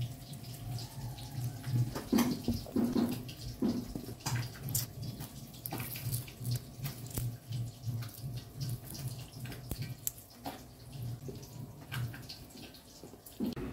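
Small kitchen knife slicing young galangal shoots held in the fingers: irregular crisp clicks as each piece is cut through, over a faint low hum.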